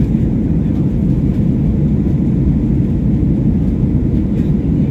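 Airliner jet engines and rushing air, a steady low rumble with no change in pitch.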